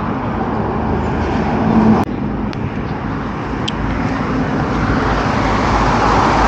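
Steady roadside traffic noise from passing cars and trucks, with a sharp click about two seconds in.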